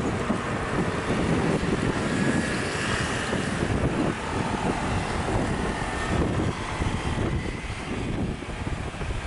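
Steady wind buffeting the microphone over a low traffic rumble, with a faint high whine coming and going in the middle.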